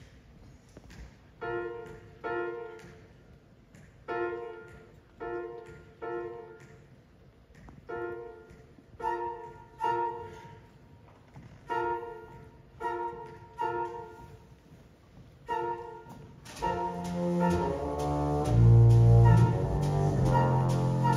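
Big jazz band opening a piece: a quiet, sparse figure of short repeated chords, often in pairs, then about 16 seconds in the full band enters louder with brass and low bass notes.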